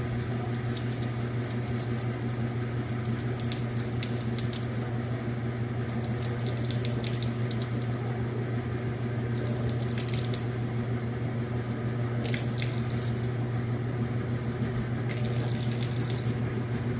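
Roper direct-drive top-load washer in its final spin at full speed: a steady motor hum with water rushing out through the drain. It runs evenly, without banging or rattling off balance.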